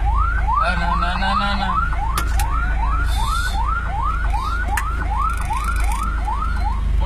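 Ambulance's electronic siren in a fast yelp, a quick rising sweep repeated about two and a half times a second, over the steady low rumble of the vehicle running. The siren cuts off just before the end.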